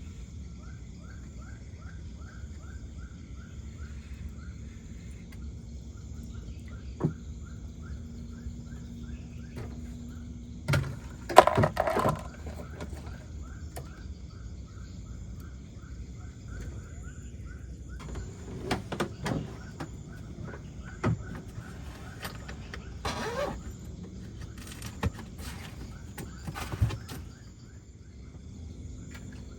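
Insects chirping in rapid repeated pulses over a steady low rumble of outdoor night ambience, broken by several sharp knocks and rustles of handling close to the microphone, the loudest about eleven seconds in.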